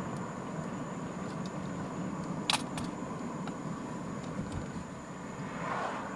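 Steady engine and road noise inside a moving mid-size pickup truck's cab, with a sharp click about two and a half seconds in.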